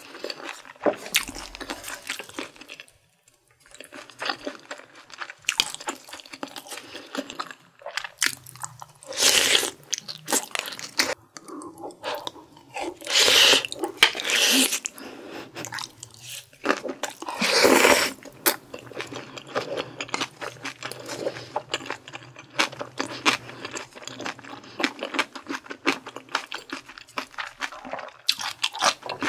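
Close-miked eating: steady wet chewing with many small mouth clicks, broken by a few louder slurps of bulgogi hot-pot broth and noodles from a wooden spoon, about a third of the way in and again around the middle.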